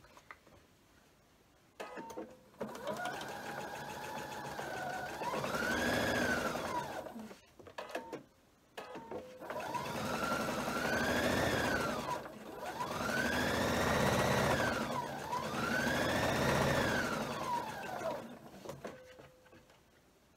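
Electric sewing machine stitching a seam through quilt fabric, starting about two seconds in. The motor runs in stretches, its pitch rising and falling several times as it speeds up and slows down, with a brief stop about halfway through.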